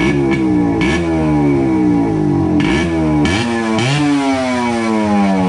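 Yamaha RX 100's two-stroke single-cylinder engine running with the silencer removed, blipped on the throttle about four times. Each time the revs jump up sharply and then sink slowly back toward idle.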